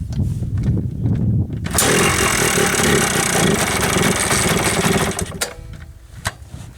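Yamaha Blaster's two-stroke single-cylinder engine being started cold without choke: after a second or so of cranking it fires and runs loudly for about three seconds, then dies away.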